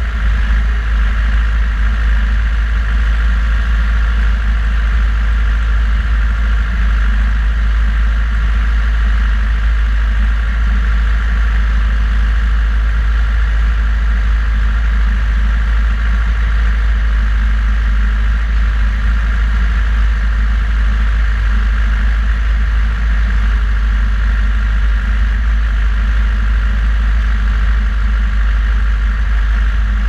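John Deere 6120 tractor's four-cylinder diesel running steadily under the load of pulling a three-furrow plough, picked up close from the bonnet with a heavy, constant low rumble.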